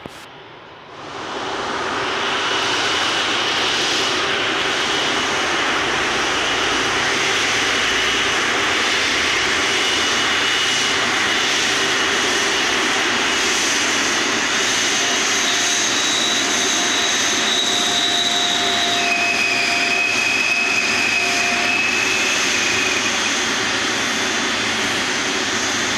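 Airbus A330 taxiing slowly with its jet engines running, its wheel brakes squealing over the engine noise in thin high tones that come and go and shift in pitch. The sound rises to full level about a second in.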